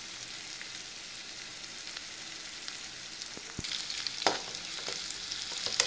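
Sliced onions frying in oil in a nonstick pan, a steady sizzle that grows louder about three and a half seconds in. A couple of sharp clicks come from stirring the pan.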